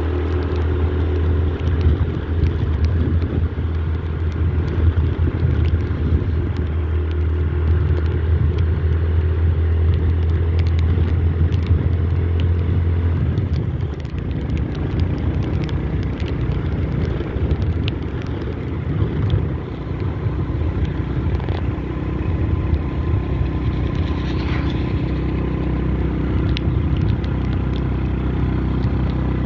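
Motorbike engine running while riding, with road and wind noise. A steady low drone for the first half breaks into a rougher, uneven rumble about halfway through, with scattered small clicks and rattles.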